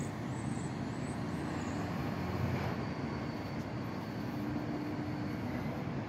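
Diesel engine of a Freightliner SD garbage truck running steadily out of sight, a low, even hum.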